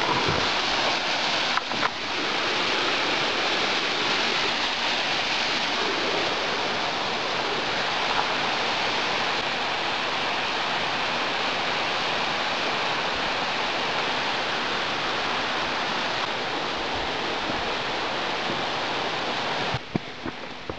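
Steady rushing of water from a creek cascading through a rocky gorge, even and unbroken; it drops away sharply about a second before the end.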